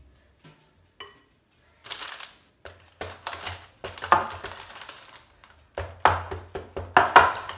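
Near silence, then from about two seconds in a run of irregular knocks and clatter from a metal baking tray and a mixing bowl being handled on a stone counter.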